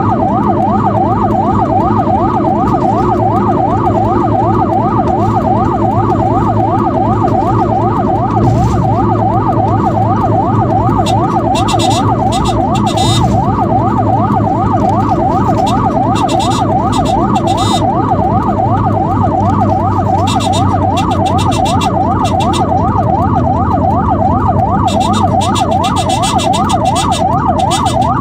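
Ambulance siren on a fast yelp, its pitch sweeping up and down about four times a second, loud and unbroken over steady vehicle engine and road noise.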